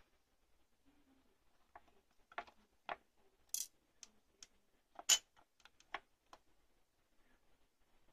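A small plastic cap being worked onto a tube connector by hand: a string of light clicks and taps, the sharpest about three and a half and five seconds in.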